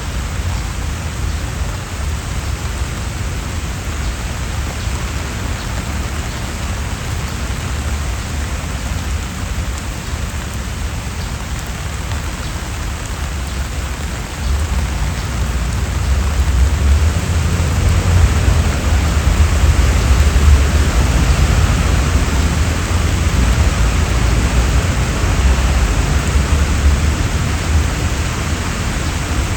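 Steady rain falling on trees and paving, growing louder about halfway through, with a low rumble underneath.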